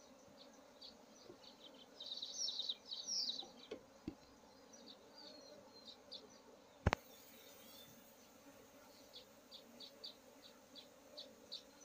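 Honeybees buzzing in a low, steady hum, with short high chirps coming and going and a single sharp click about seven seconds in.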